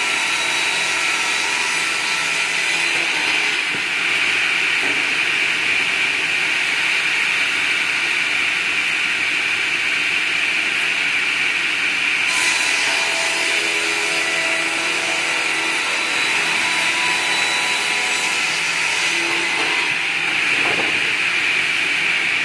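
Large circular saw blade of a sliding-table log sawmill running steadily and ripping through a log fed on a hand-pushed carriage. It makes a continuous high-pitched sawing noise.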